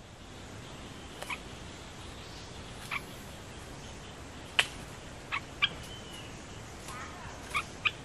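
Bulbul giving short, sharp call notes spaced a second or more apart, with a brief whistle about six seconds in and a quicker run of notes near the end, over a steady forest background hiss.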